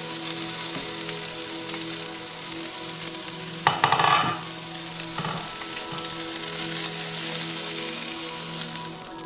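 Food sizzling in a frying pan as it cooks, a steady hiss, with a short loud clatter about four seconds in.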